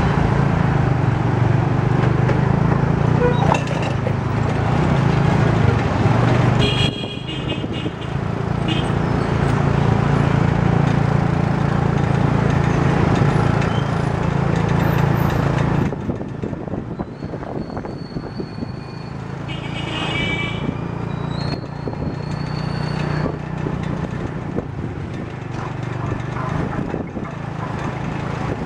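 Small motorcycle engine of a Phnom Penh tuk-tuk running steadily under way, with the wash of street traffic around it. The sound dips briefly about seven seconds in and becomes quieter from about sixteen seconds on.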